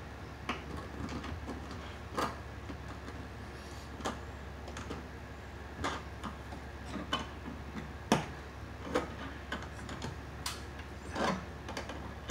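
Irregular clicks and light metallic clinks of pliers gripping and twisting 10-gauge bare copper ground wires together in a metal junction box, the sharpest click about eight seconds in. A steady low hum runs underneath.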